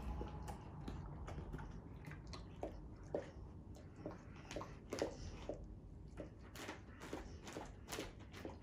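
American Pit Bull Terrier licking peanut butter off a plastic freezer bag: a run of faint, irregular wet licks, a few a second, with the loudest about five seconds in.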